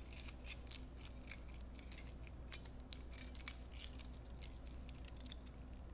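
Aluminium foil strip being crumpled and rolled between the fingers into a thin rod, crinkling with an irregular run of sharp crackles.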